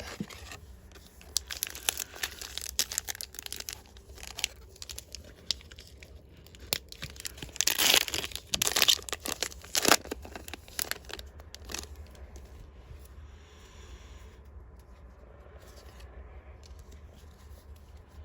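A Disney Lorcana trading-card booster pack's foil wrapper being torn open and crinkled. The crackling is loudest about halfway through, then settles to a quieter rustle for the last few seconds.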